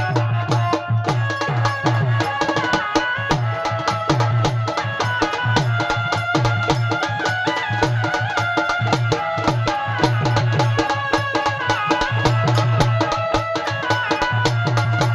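Song music with a steady, regular drum beat and a melody line moving in steps above it.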